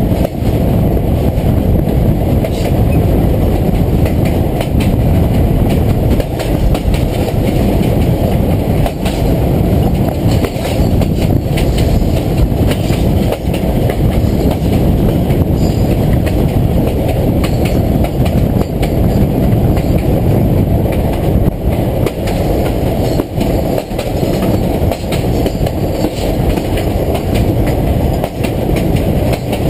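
Hershey electric train rolling along the track: a steady, loud rumble, with irregular clicks and knocks from the wheels passing over the rail.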